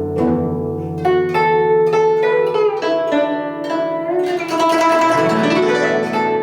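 Music played on a plucked zither: a run of ringing plucked notes over a sustained low part, with a fast sweeping flurry of notes about two-thirds of the way through.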